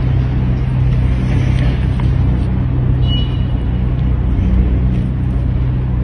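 Steady low mechanical rumble and hum, like an engine running, with a few faint light clicks and a brief high metallic ring about halfway through.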